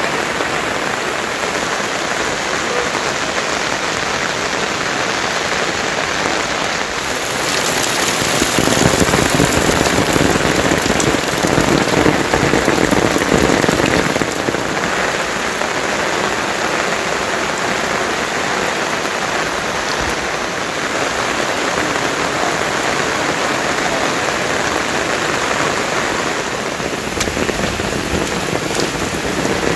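Heavy monsoon rain falling, a steady hiss that swells louder for several seconds about a third of the way in.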